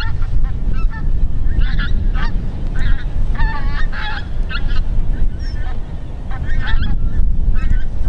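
A flock of pink-footed geese calling in flight, many short, high honks overlapping throughout, over a steady low rumble.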